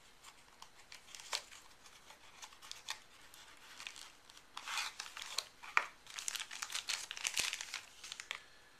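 Packaging of a folding knife being torn and crinkled open by hand: scattered crackles and tearing, sparse at first and busier in the second half.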